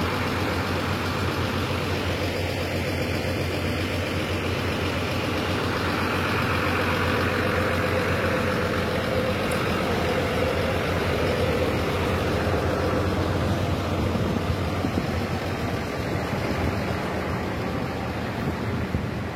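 Diesel tour-bus engine running at idle, a steady low rumble that swells slightly around the middle.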